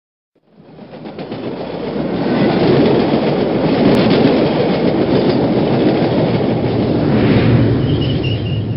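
A train rumbling along the track with a clickety-clack of wheels, fading in over the first two seconds and then holding steady and loud.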